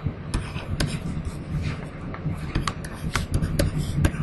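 Stylus tapping and scratching on a pen tablet while handwriting: a run of irregular sharp clicks over a steady low hum.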